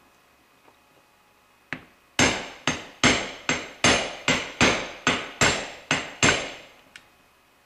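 A hammer strikes a steel tube used as a driver, seating the oil seal in a Dodge NV4500 input-shaft bearing retainer. One light tap comes first, then about eleven sharp, even blows, roughly two and a half a second. Each blow rings briefly in the metal.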